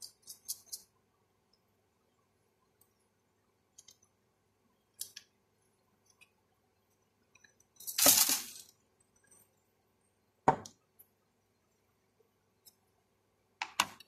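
Scattered kitchen handling noises as seasoning is handled over a plastic tub of chicken: a few light clicks and clinks, a louder noise lasting under a second about eight seconds in, a sharp knock a couple of seconds later, and a short clatter near the end.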